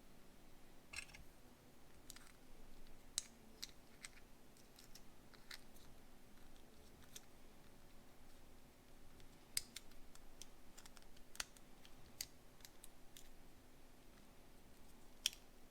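Faint, irregular clicks and taps of small plastic and metal model-kit parts being handled and pressed together, as an eye socket brace is worked onto a pair of eye sockets.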